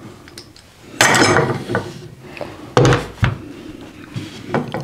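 Steel F-clamp being handled on wooden boards: its sliding jaw clanks and rattles on the bar and it knocks against the wood. There are two louder clatters, one about a second in and one near the three-second mark, with lighter clicks between.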